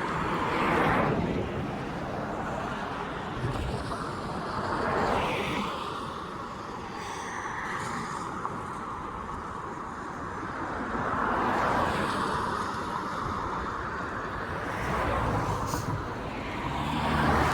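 Street traffic: several vehicles pass one after another, each swelling and fading over a couple of seconds against a steady background hum.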